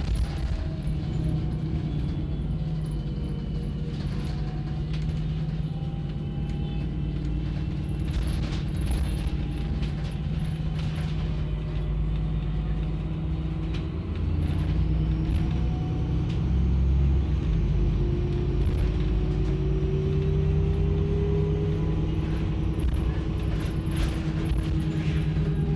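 Alexander ALX400-bodied Dennis Trident double-decker bus heard from the upper deck in motion: its diesel engine running steadily, with the engine note gliding up and down and getting louder about halfway through as it pulls. Short rattles from the body come a few times.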